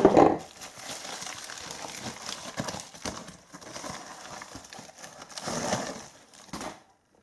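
Rustling and crinkling of plastic packaging with light knocks as a graphics card in its anti-static bag is taken out of the box and handled; the sound cuts off suddenly near the end.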